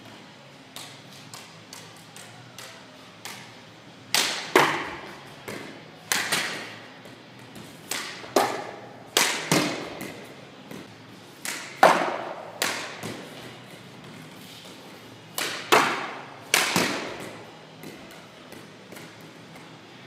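Floorball stick striking a plastic floorball: light taps of stick-handling, then about a dozen hard cracks of shots, mostly in close pairs, each ringing on in the echo of a large hall. The light tapping returns near the end.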